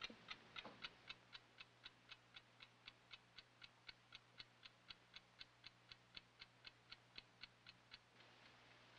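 Mechanical chess clock ticking steadily, about four ticks a second, stopping near the end.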